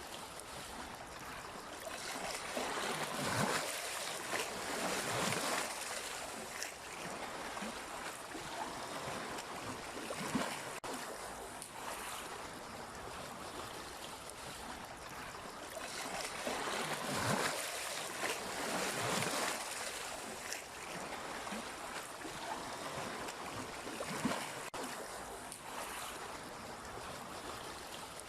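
Sea waves washing in and out on the shore as a continuous rushing noise, surging louder twice: a few seconds in and again a little past the middle.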